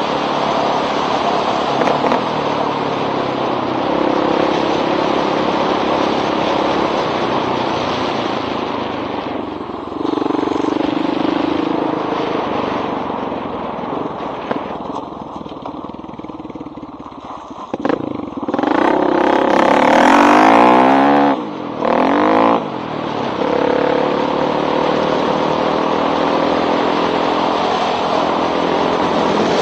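1985 Honda XR350R's single-cylinder four-stroke engine through a loud exhaust, ridden along at a steady pace. Past the middle it eases off, then revs up hard with rising pitch, the loudest part, cuts back, gives one more short blip, and settles again into steady running.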